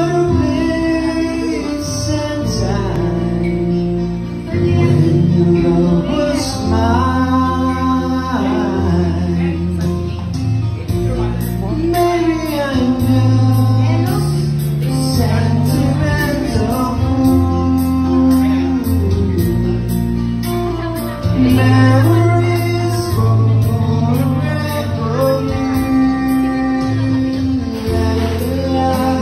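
A man singing into a handheld microphone over instrumental accompaniment, the melody in long held notes over a steady bass line.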